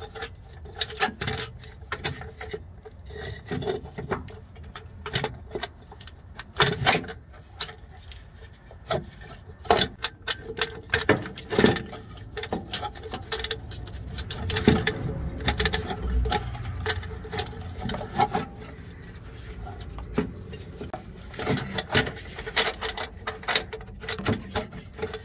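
Black plastic crankcase filter (oil separator) housing being worked up into place under a diesel engine: irregular knocks, clicks and rubbing of plastic against the metal block, hoses and wiring as it is maneuvered, a fiddly fit.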